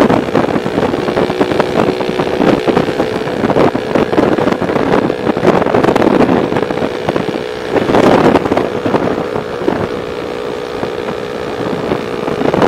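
Small underbone (kapcai) motorcycle engine running at a steady cruise while riding, with wind rushing over the microphone.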